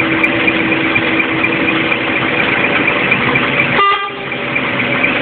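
Scania truck's diesel engine idling steadily while it builds up brake air pressure, with a short toot of the horn near the end as the horn is checked.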